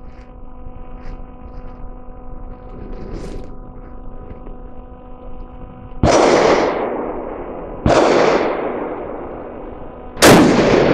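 Three rifle shots, about two seconds apart, each followed by a long fading echo; the last is the loudest. A faint steady hum comes before them.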